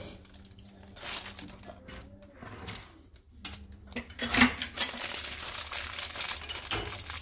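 Plastic sleeve of a rolled refrigerated pie crust crinkling as it is handled. A few soft rustles and taps come first; about four seconds in the crinkling becomes loud and continuous.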